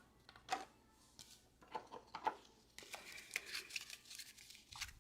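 Trading cards being handled and shuffled: a few soft clicks and slides, then a longer stretch of light rustling and ticking near the end.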